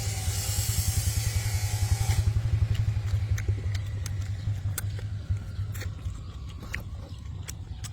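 An engine running steadily with a fast, even low chug. A hiss sits over it for the first two seconds, and there are scattered sharp clicks.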